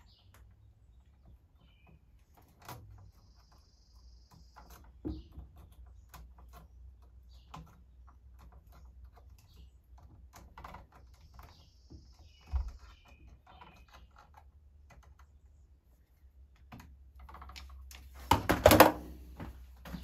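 Scattered small clicks and scrapes of pliers and copper wire ends being handled and twisted together into a splice inside a plastic switch box, with a louder cluster of clattering about two seconds before the end.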